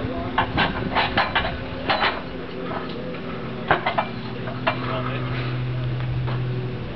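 Steel boat stands being set and adjusted against a hull: a string of sharp metallic clinks and knocks, scattered and uneven. A steady low hum runs underneath and grows louder about two-thirds of the way in.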